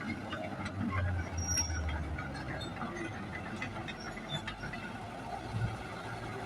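Excavator engine running with scattered short knocks, the rumble strongest about a second in.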